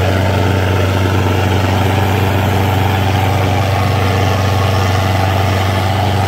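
Sonalika 750 tractor's diesel engine running steadily under load while pulling a disc harrow through soil, a deep even drone that does not change.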